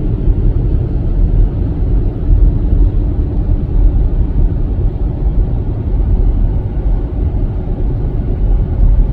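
Road and engine noise inside a moving car: a steady low rumble with no distinct events.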